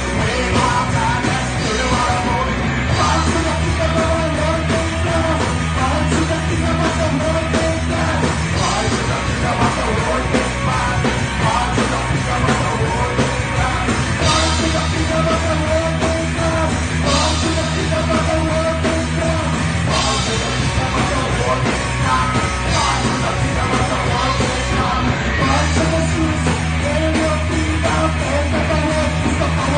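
Live rock trio playing loud: electric guitar, bass guitar and drum kit, with vocals. The heavy low end drops out and comes back in a few times as the song moves between sections.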